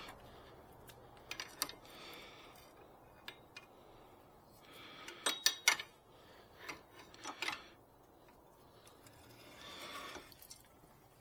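Scattered clicks and clinks of hand tools on metal, with a cluster of sharper clicks about five and a half seconds in.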